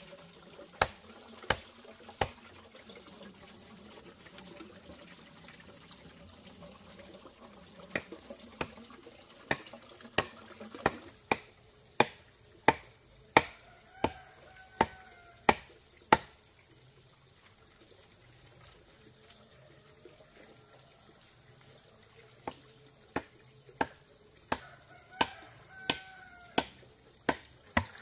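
A series of sharp knocks at a steady pace, about one and a half a second, in three runs with pauses between; the blows are loudest in the middle run.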